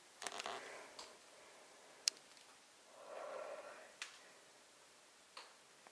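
A quiet room with a few scattered sharp clicks and scuffs of people moving about on a debris-strewn floor, and a short breathy sound about three seconds in.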